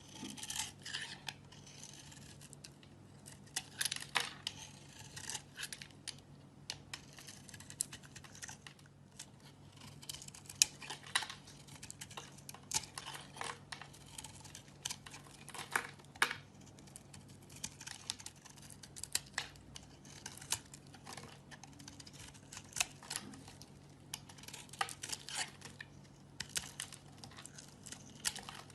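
Knife blade carving and scraping a bar of soap: irregular crisp scrapes and crunches, with sharp clicks here and there.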